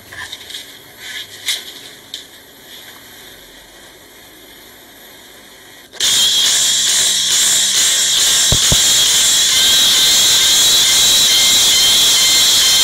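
Quiet background with a few faint clicks, then about six seconds in a loud, steady hiss of static starts abruptly and holds, bright and with no tune or voice in it.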